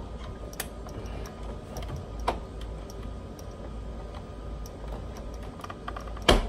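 Scattered light clicks and taps of plastic car interior trim being handled and pressed into place. There is a sharper knock about two seconds in and a louder one near the end.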